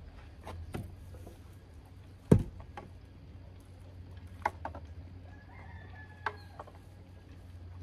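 Sharp wooden knocks and clunks as a board and a stepladder are handled, the loudest a single hard knock about two seconds in. A rooster crows faintly in the background a little after five seconds in.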